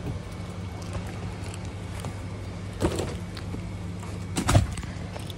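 Car engine idling with a steady low hum, with a thud about three seconds in and a louder thud near the end as the car door is worked open.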